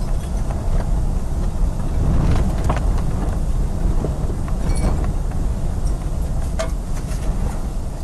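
Tornado wind rumbling against the microphone: a loud, steady low roar with a few faint knocks or rattles about three, five and seven seconds in.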